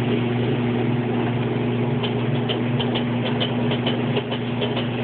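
Whirlpool washing machine running with a steady motor hum. From about two seconds in, light rapid ticking, several a second. The drum is not spinning, which the owner puts down to a clutch that is not engaging.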